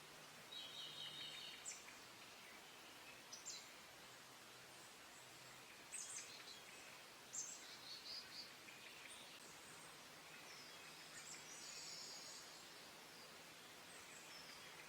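Small wild birds chirping and trilling faintly in spring woodland: short calls, a brief trill, and a few sharp notes scattered through, over a steady background hiss.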